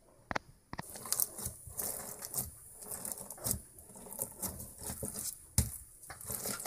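Crunchy slushy slime, a clear glittery slime packed with tiny beads, being pressed and kneaded by hand: a fast run of small crackling clicks and pops, starting about a second in.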